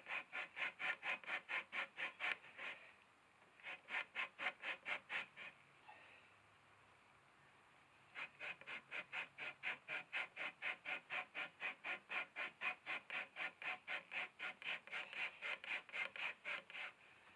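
Beaver hide being rubbed hard back and forth over the edge of a wooden 2x2 stake: quick rasping strokes, about four a second. They come in three runs, with a short pause about three seconds in and a longer one from about five to eight seconds. This is the hide being broken as it dries; the rubbing tears up its fibres so it fluffs up and whitens.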